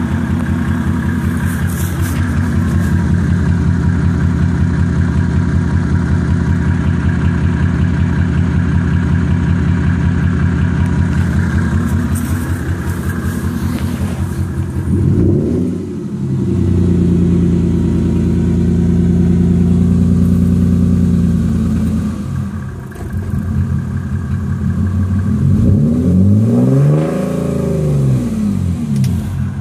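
Mercedes E300's OM606 3.0-litre inline-six diesel idling roughly, which the owner puts down mainly to worn motor mounts. It is revved and let fall back about halfway through, and again near the end.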